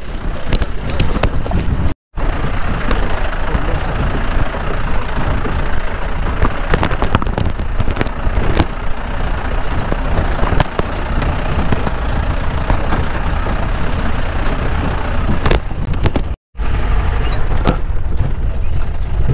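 Off-road jeep running over a rough, bumpy track: a heavy low rumble of engine and road with constant clattering and knocking from the body and suspension. The sound drops out briefly twice.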